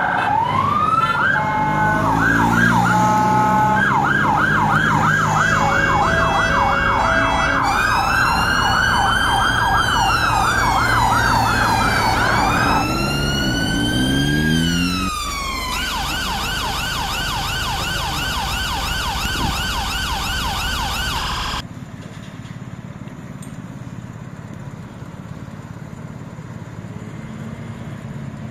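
Police vehicle sirens: a fast yelp, joined for a while by a slower wail that rises and falls, then a different fast warble. The sirens cut off suddenly about three-quarters of the way through, leaving a low traffic rumble.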